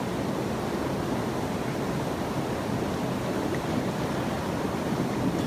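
Steady, even rush of moving water with no distinct events.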